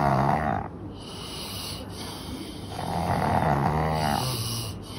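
Snoring of a sleeper: one long snore fades out in the first second and another comes about three seconds in, each with a low rattling rumble.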